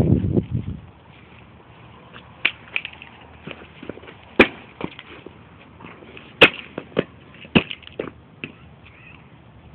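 A mobile phone being smashed: a series of sharp, irregular knocks and cracks, the two loudest about four and six and a half seconds in, after a second of low noise that fades out at the start.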